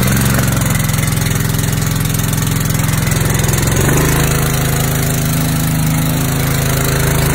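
Honda GX200 single-cylinder engine on a water pump running steadily just after being pull-started, on choke with the throttle backed off a bit. Its note shifts and settles about four seconds in. It now runs after a blocked in-tank fuel filter, the cause of its stalling under load, was replaced.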